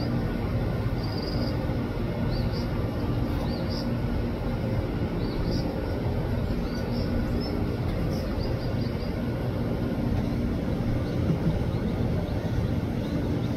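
Quadcopter drone hovering, its propellers giving a steady hum, with faint high chirps scattered through it.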